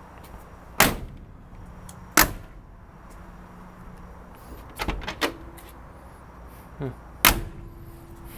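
Doors of a 1958 Chevrolet Nomad four-door wagon clunking as they are worked: a handful of sharp clunks a couple of seconds apart, two close together about five seconds in, some leaving a brief ring. A steady low hum lies underneath.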